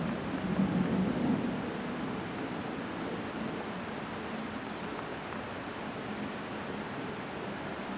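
An insect, cricket-like, chirping steadily: short high-pitched chirps, evenly repeated about two or three times a second, over a constant outdoor hiss. A low rumble rises briefly in the first second or so.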